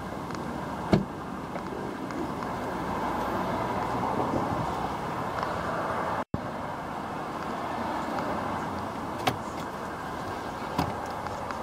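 Steady outdoor background noise with one sharp click about a second in, fitting the Kia cee'd estate's tailgate being unlatched, and two lighter clicks near the end. The sound drops out for an instant just past the middle.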